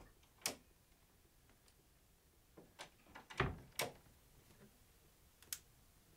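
A handful of sharp knocks and clicks spaced unevenly, the loudest a dull thump about three and a half seconds in.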